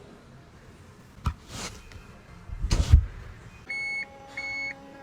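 A sharp click and a heavy thump, then two evenly spaced electronic beeps near the end over a steady tone, of the kind a car's warning chime makes.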